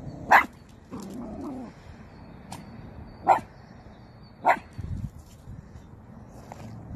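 Small dog barking: three sharp single barks, one about a third of a second in and two more about a second apart around the middle.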